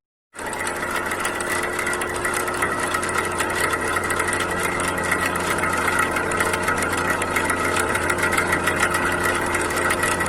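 Electric exhaust fan running with a steady hum and a fast, continuous rattle, the excess noise that the uploader takes as the sign of a worn bush and shaft. It starts abruptly.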